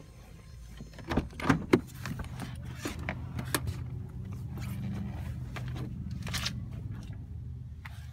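Handling noise inside a parked car: the phone is jostled and rubbed against seats and surfaces, giving scrapes and a few sharp knocks, loudest about a second and a half in. A low steady hum runs underneath through the middle of the clip.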